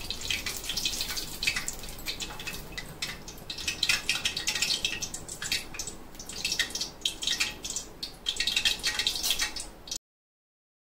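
Curry leaves frying in hot oil, crackling with many quick, irregular pops. The sound cuts off suddenly near the end.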